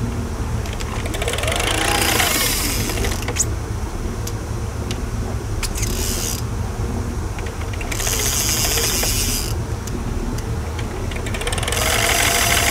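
Boat engine running steadily at trolling speed. Over it come on-off bursts of high whirring from the downrigger and rod gear being worked as lines are set, about two seconds in, again around eight seconds and near the end, with a few sharp clicks between.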